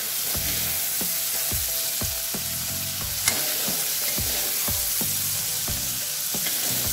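Small shrimps sizzling in hot mustard oil while a utensil scrapes through the pan about twice a second, lifting the fried shrimps out. A single sharp clink a little past three seconds in.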